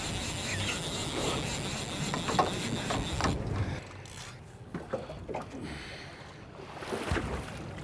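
Wind and water noise aboard a small open fishing boat. The noise drops off suddenly about a third of the way through, and a few light knocks follow.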